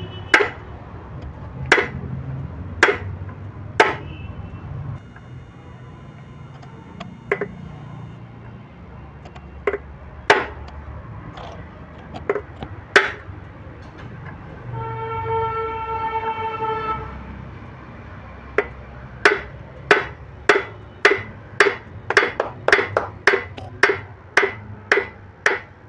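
Hammer striking a steel punch to drive the lock pins out of a Mahindra Novo 605 tractor's PTO gear-shifter fork: single sharp metal blows at first, then a fast run of about two blows a second over the last quarter. Midway a horn sounds steadily for about two seconds.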